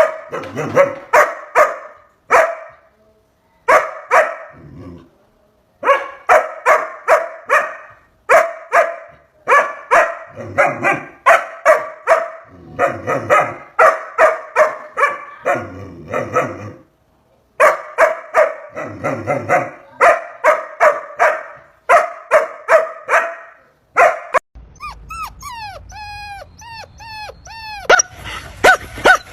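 Dog barking in quick runs of several sharp barks, pausing briefly between runs. Near the end the barking gives way to a series of high, falling yips or whines, about four a second.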